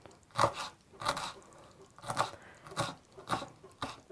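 Kitchen knife chopping fresh dill on a wooden cutting board: six chops at an uneven pace, roughly one every half-second to second.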